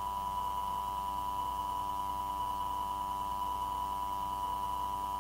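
Steady electronic tone with faint hum under it: line noise on an air traffic control tower radio recording between transmissions.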